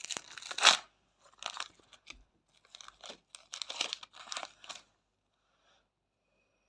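A Panini Premier League pack's wrapper being torn open and crinkled by hand, in several short rustling bursts that stop about five seconds in.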